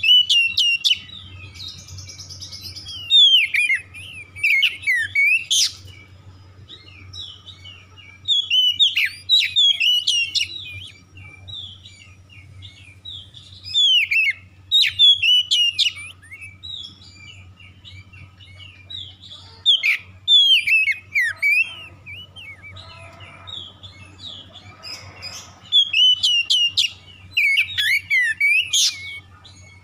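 Oriental magpie-robin singing: bursts of sharp, sliding whistles and chatter a few seconds long, repeated about every five or six seconds, over a steady low hum.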